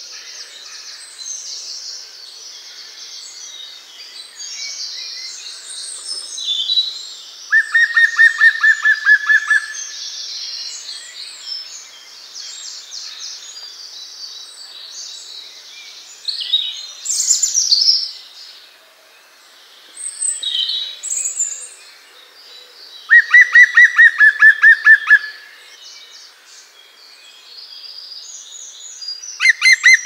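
Many birds chirping and twittering in a busy chorus. Three times, one bird cuts in with a loud, rapid run of the same note repeated about six times a second for about two seconds.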